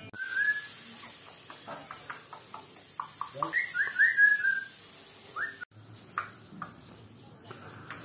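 African grey parrot whistling: one short whistle near the start, then a run of quick up-and-down whistle notes about four seconds in, the loudest part.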